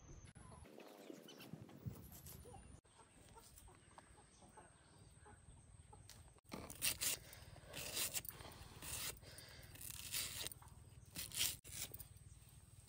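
Hens clucking faintly, then from about halfway a series of crisp cuts as a knife slices through a raw onion held in the hand.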